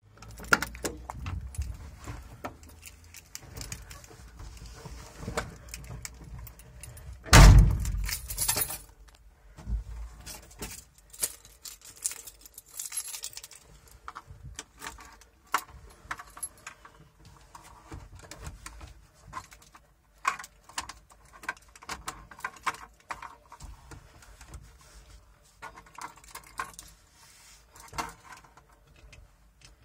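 Keys jangling and scattered clicks at the door lock and ignition of a 1981 Ford Transit MK2, with one loud thump about seven seconds in as the van's door shuts. The engine is not running.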